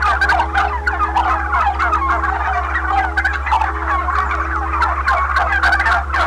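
Dense, rapid bird calls chattering without a break, over steady background music tones.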